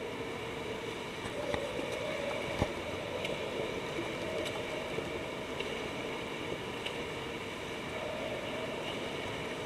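Indoor swimming pool ambience: a steady wash of water noise from swimmers splashing in the lanes, with a brief knock about two and a half seconds in.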